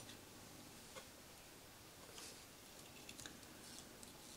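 Near silence with a few faint, sharp little clicks and ticks, spaced irregularly, as fingers handle the laser pickup sled and its guide rod in a Denon 2930 DVD player's disc mechanism.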